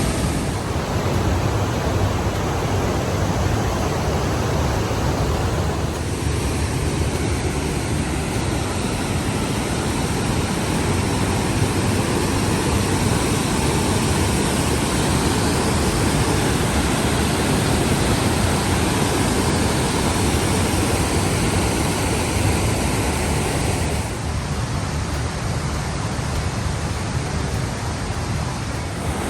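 Large waterfall carrying a heavy flow of water: a loud, steady rush of falling water, its colour shifting slightly about six seconds in and again near the end.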